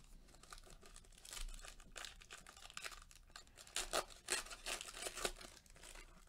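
Wrapper of a basketball trading card pack being torn open and crumpled in the hands: a run of crinkling, crackling noises, loudest a little past the middle.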